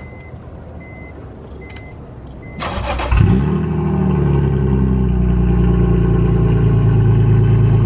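BMW E46 M3's S54 inline-six, with no muffler and no catalytic converters, cranked by the starter about two and a half seconds in. It catches with a short flare just after three seconds, then settles into a steady, pretty loud idle.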